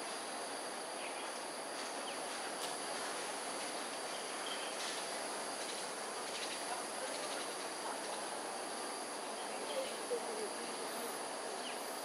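Outdoor ambience: insects calling steadily in several high, even tones over a steady wash of background noise, with a few faint short chirps.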